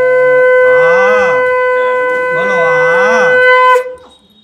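Conch shell (shankha) blown in one long, steady note that cuts off near the end. Over it, twice, a voice rises and falls in pitch.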